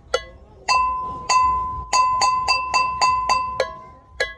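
A metallic chime struck again and again, each strike ringing on one clear pitch with bright overtones. The strikes come about half a second apart, then quicken to about four a second from two seconds in.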